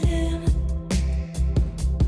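Background pop music with a steady beat, bass and sustained melodic notes.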